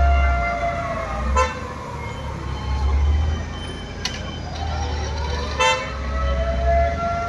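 Civil defence siren wailing as a blackout warning: it holds a steady tone, winds down in pitch after about a second, then winds back up to the steady tone near the end. Two short sharp sounds cut in about a second and a half in and again near the end.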